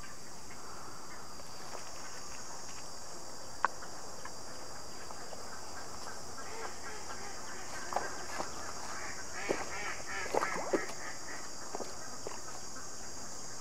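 A caught carp splashing and thrashing as it is lowered on a stringer into the pond water, with a run of short splashes in the second half. Before that comes a single sharp click, over a steady high hiss.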